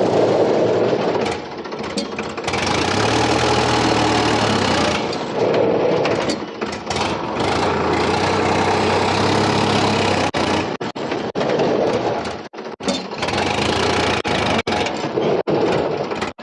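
Sonalika DI 42 RX tractor's diesel engine running while the tractor is driven and braked to test its freshly serviced oil-immersed brakes, engine speed rising and falling a few times. The sound cuts out briefly several times in the last few seconds.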